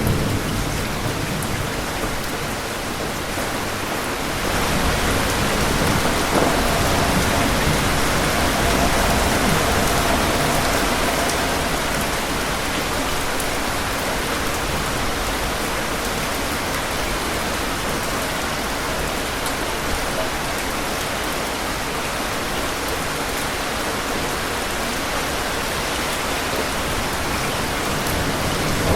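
Heavy rain falling steadily, swelling a little about five seconds in, with low thunder rumbling at the start and again near the end.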